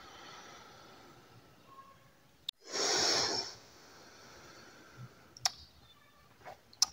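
A man blowing out cigarette smoke in one long breath close to the microphone, about three seconds in, just after a sharp click. A few small mouth clicks follow near the end.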